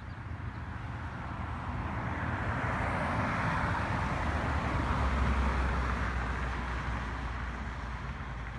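A car driving past on the road, its tyre and engine noise swelling to a peak about halfway through and then fading away.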